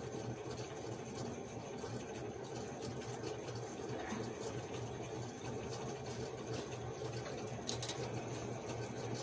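Steady low hum with room noise, with a few faint rustles and clicks as felt pieces are handled.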